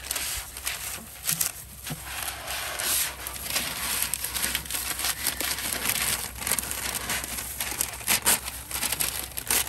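Butter paper (baking parchment) crinkling and rustling as it is handled, with irregular crackles throughout.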